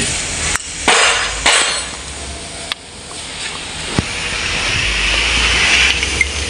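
Workshop noise: a few sharp knocks, then a hiss that grows louder over a couple of seconds.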